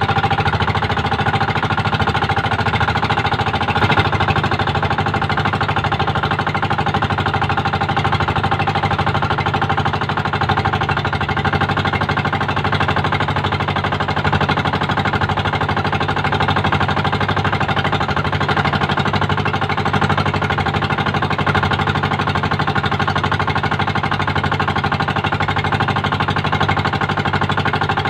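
Engine of a motorized outrigger fishing boat (bangka) running steadily under way at trolling speed, with a fast, even knocking beat.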